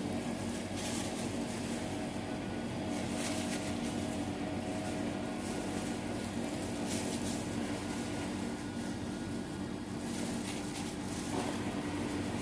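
A steady mechanical hum, like a fan or appliance motor, with a few faint clatters and rustles now and then.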